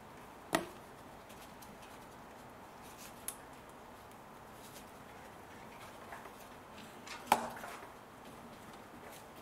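Hand tools and parts being handled in a car's engine bay: a sharp knock about half a second in as a socket ratchet is set down on the plastic engine cover, a small click after about three seconds, and a louder knock about seven seconds in.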